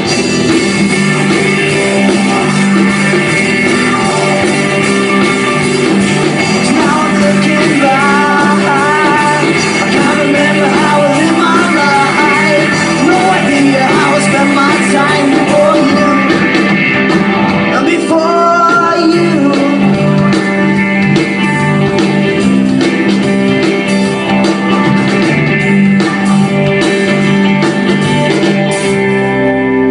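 Live rock band playing an instrumental break: held chords over bass and drums, with a lead melody line that bends in pitch twice in the middle.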